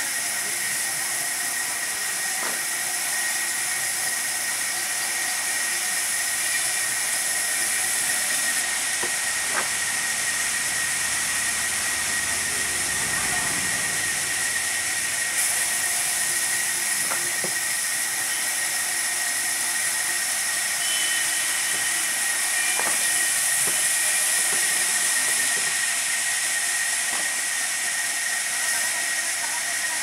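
Sawmill band saw running and cutting a long log fed along its carriage: a steady hissing noise with a constant high whine, and a few faint knocks.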